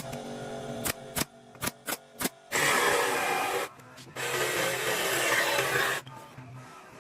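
A few sharp knocks on wood, then two long rasping strokes of a hand tool across wood, the first about a second long and the second nearly two seconds.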